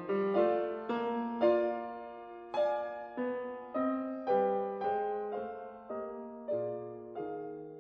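Background piano music: notes and chords struck roughly every half second, each left to ring and fade.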